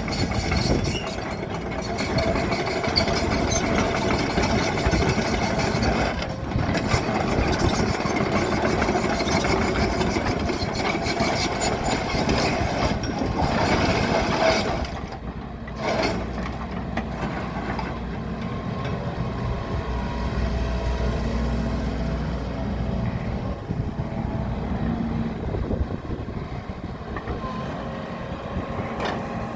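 Case CX135SR excavator's diesel engine running. It is louder and rougher for about the first half, dips briefly, then settles into steadier, quieter running with a low hum.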